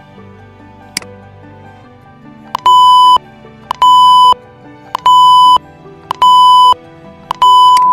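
Five loud electronic beeps, each a steady single tone about half a second long, coming about every 1.2 seconds over soft background music: a beep sound effect played back in the edit. A short click about a second in.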